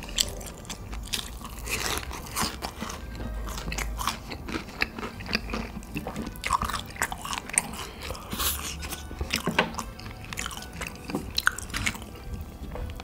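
A person biting and chewing crunchy food, with many quick, irregular crunches.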